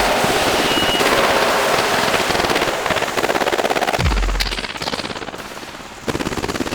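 Fireworks crackling and banging in a fast, dense rattle of small reports, thinning out after about four seconds and flaring again near the end. A deep, falling bass boom lands about four seconds in.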